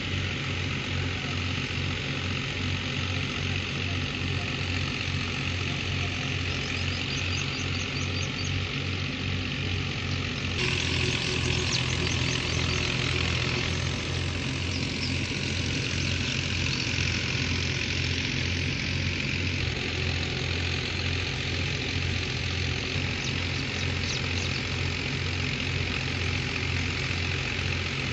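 Tractor diesel engine running steadily under load, driving a wheat thresher, with an even low rhythmic pulse and a steady rushing hiss from the threshing machine. A few faint high chirps come through now and then.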